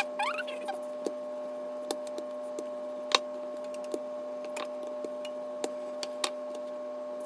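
Handled wooden rolling pin clicking and knocking on a granite countertop as a stiff, chilled dough is rolled out: sharp clicks about once a second, over a steady hum.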